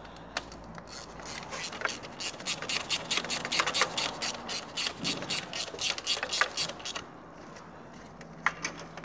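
Ratchet wrench clicking rapidly as a spark plug is turned in its well on the engine's cam cover, in a run of about six seconds, with a couple of single clicks near the end.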